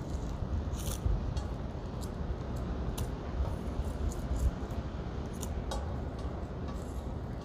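Light, scattered clicks and taps as small scallion (jjokpa) bulbs are picked up one by one off a glass tabletop, over a steady low background rumble.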